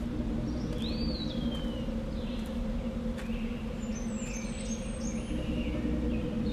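Birds chirping over a low, steady drone: one chirp slides up and then down about a second in, and a few higher chirps follow around the middle.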